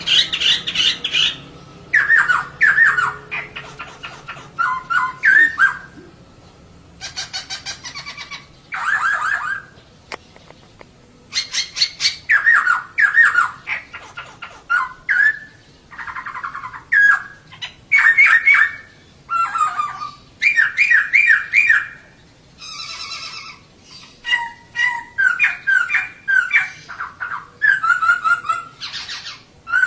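Female poksay (laughingthrush) calling in short bursts of rapid, chattering chirped notes, phrase after phrase with brief pauses between. Used as a lure call to set a male poksay singing.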